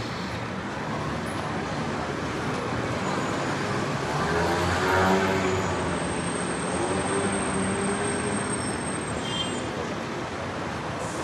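Street traffic: a steady hum of cars on the road, with a vehicle going by loudest about halfway through.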